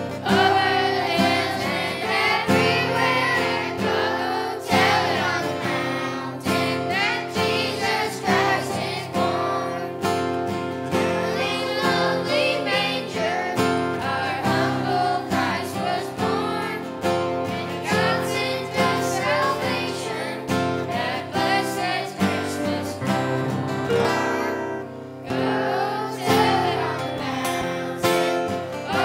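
A children's choir singing a song with acoustic guitar accompaniment.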